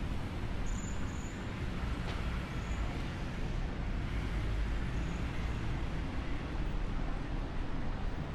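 Street traffic: a steady low rumble of vehicles on the road, heaviest in the second half, with a few faint short high-pitched squeaks in the first half.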